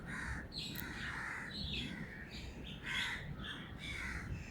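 Birds calling, a string of short calls one after another.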